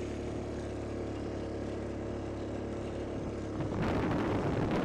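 A vehicle engine running steadily while riding along. Nearly four seconds in, a loud burst of rushing noise rises over it and lasts to the end.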